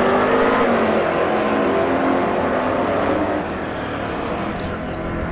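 Engines of two drag-racing muscle cars running loudly together at the start line, with shifting engine pitch; the sound drops a little in level past halfway.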